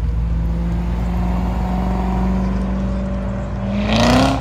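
Corvette's V8 engine accelerating away: a steady engine note that rises in pitch and swells loud near the end, then breaks off suddenly.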